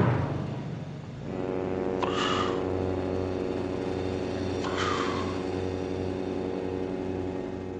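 A man making mock gunshot sounds with his mouth, a finger held to his temple: two short breathy puffs that fall in pitch, about two and a half seconds apart. Under them runs a sustained low musical chord with a pulsing bass tone.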